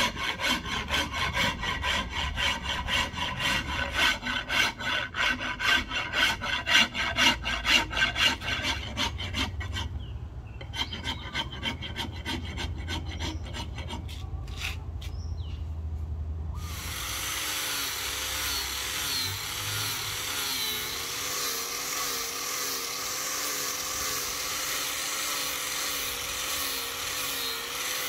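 A rasp or file being worked on a curly padauk axe handle, in a steady run of even strokes that thin out about ten seconds in. About two-thirds of the way through, a small power tool takes over, running steadily with a slightly wavering pitch.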